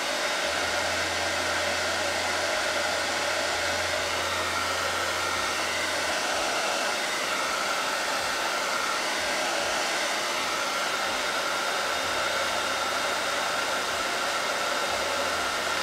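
Electric heat gun blowing hot air in a steady rush over a pine board, heating wood-burning gel paste so that it scorches into the wood.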